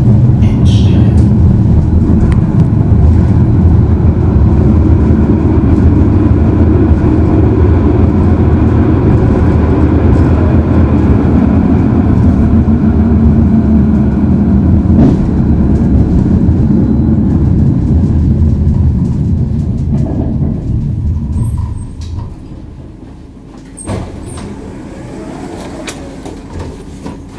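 Tram running on its rails, a loud, steady rumble of wheels and drive. About 21 seconds in it drops off sharply as the tram slows to a stop, leaving a quieter steady hum with a couple of clicks.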